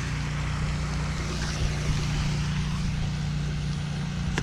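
Steady low motor hum under a constant outdoor hiss, unchanging throughout.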